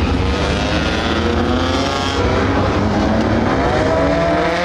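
Engines of several compact dirt-track race cars running around the track, with overlapping engine notes rising and falling in pitch as the cars pass.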